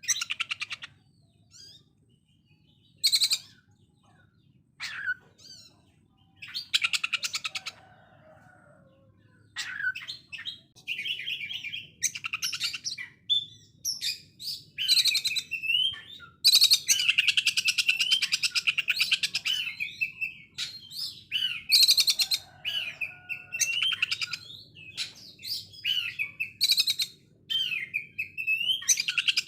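Oriental magpie-robin (kacer) singing in harsh, machine-gun-fast rattling phrases, the 'konslet' delivery likened to a sewing machine. Short bursts with pauses at first, then almost unbroken rattling and whistled notes from about a third of the way in.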